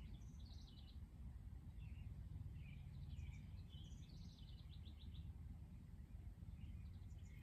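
Faint bird chirps and quick trills, several in the first five seconds, over a steady low hum.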